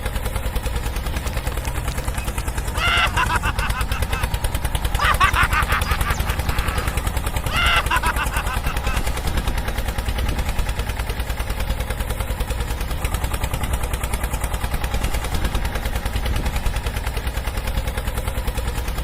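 A small engine running steadily with a fast, even chugging, with brief louder, brighter bursts about three, five and eight seconds in.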